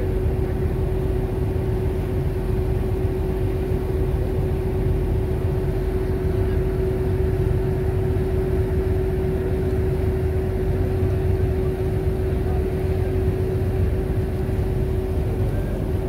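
Ferry's engine running steadily underway: a constant drone with a steady hum tone, over the rush of water churned up in the wake.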